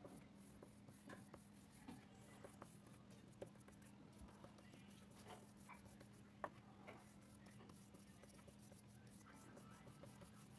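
Faint scratchy strokes of a paintbrush spreading paint across paper, with a few light ticks, over a steady low hum.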